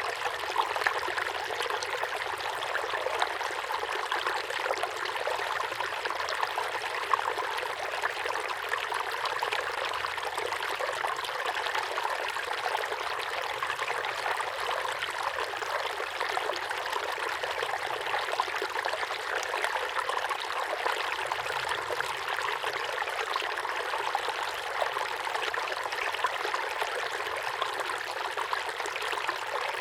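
Small waterfall pouring steadily into a pond: a continuous splashing rush of falling water, with small splashes flickering through it.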